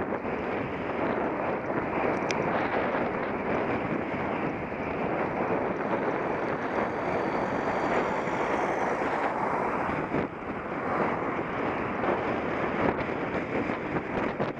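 Wind buffeting the microphone of a camera riding along a road: a steady rushing noise that dips briefly about ten seconds in.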